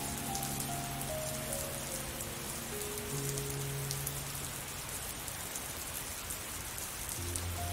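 Steady rain pattering, with soft background music of slow held notes: a falling run of notes over the first few seconds and a new low chord near the end.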